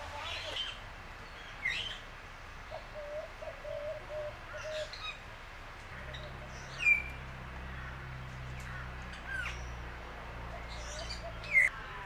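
Several birds in an aviary chirping and calling: scattered short chirps and whistled notes, a run of low repeated notes a few seconds in, and two louder falling whistles, one about seven seconds in and one near the end.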